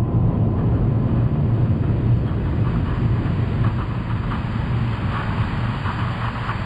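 Power hammer press machinery running: a steady low drone with no distinct hammer blows, slowly easing off, and a crackling hiss that grows over the last few seconds.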